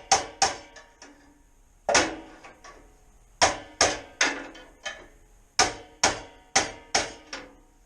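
Hammer blows on a stuck metal exhaust collar on a Can-Am Outlander ATV, driving it off the pipe. About a dozen sharp strikes with a brief metallic ring, in quick runs of two to four with short pauses between.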